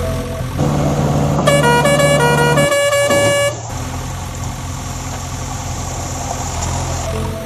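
A vehicle horn sounds for about three seconds, stepping through several notes like a short tune, over background music.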